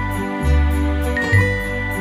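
Background instrumental music: held melody notes over a bass line that changes about once a second, with light, even high percussion.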